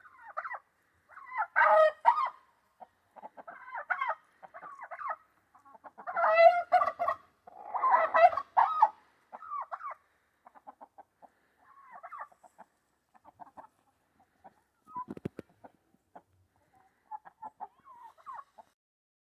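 Chickens clucking and calling in short broken bursts, with three louder, longer calls about 2, 6 and 8 seconds in. A single sharp knock comes about 15 seconds in.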